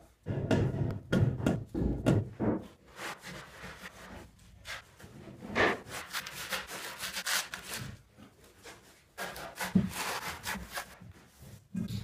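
Steel trowel scraping and knocking against aerated concrete blocks while spreading mortar into the joints: a run of short scrapes and knocks, a longer scraping stretch about halfway, and a few sharp taps near the end.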